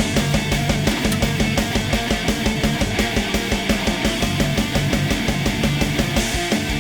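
Loud heavy rock music with distorted guitars and a steady driving beat, starting abruptly.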